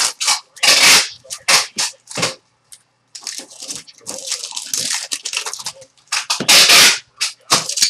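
Trading-card pack wrappers crinkling and tearing open in the hands, with cards rubbing and sliding against each other. Two louder ripping bursts come just under a second in and again near the end.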